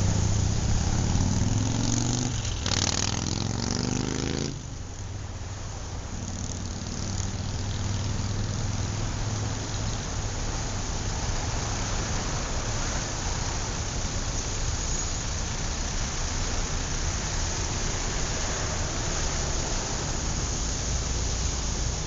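City street traffic: engines running, with one nearby vehicle's engine rising in pitch as it accelerates over the first few seconds and then cutting off abruptly, followed by a steady wash of traffic noise.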